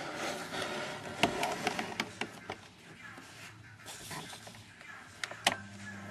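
Handling noise close to the microphone: rustling, with several sharp clicks, as a plastic fan and a sheet of paper are moved into place.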